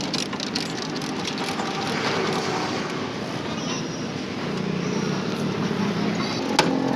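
Lever chain hoist ratcheting in quick clicks for the first half-second as its handle is pumped, then steady street traffic noise with voices, and a sharp click near the end.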